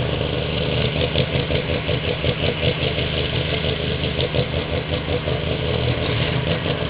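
Murray garden pulling tractor's engine running steadily with a rough, pulsing note.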